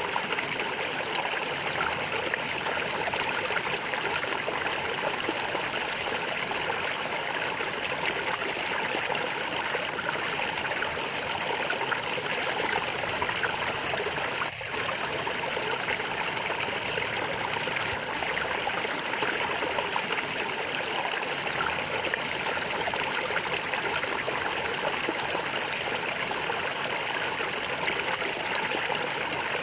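Stream water flowing and gurgling steadily, with a brief dip in level about halfway through.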